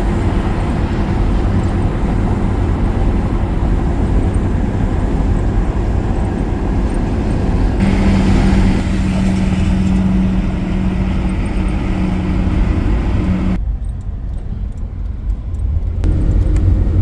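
Road and engine noise of a Class C motorhome driving on the freeway, heard from inside the cab: a steady low rumble with tyre hiss. A steady drone joins about eight seconds in and stops about six seconds later, and the hiss drops away for a couple of seconds near the end.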